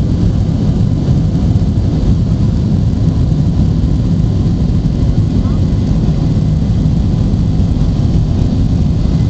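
Cabin noise inside a Boeing 737-800 during takeoff: the CFM56-7B jet engines and rushing air make a loud, steady low rumble, with no change in pitch or level.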